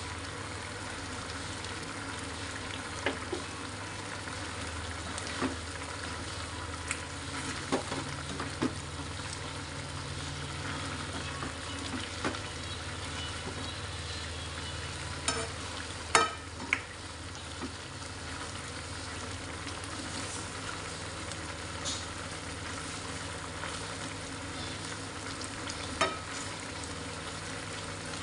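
Chicken feet and giblets sizzling and bubbling in a reducing sauce in a non-stick wok, with a spatula stirring them and knocking and scraping against the pan now and then, loudest about sixteen seconds in. A low steady hum runs underneath.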